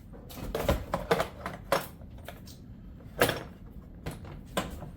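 Irregular metallic clinks and knocks of tools and engine parts being handled and set down, about eight in all, the loudest about three seconds in.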